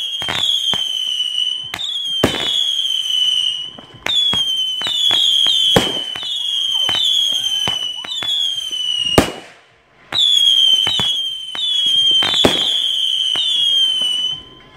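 Fireworks going off in a rapid string of whistling shots: overlapping shrill whistles, each dipping slightly in pitch, mixed with sharp pops and bangs from the bursts. There are brief lulls about four seconds in and just before ten seconds, with the loudest bang right before the second lull.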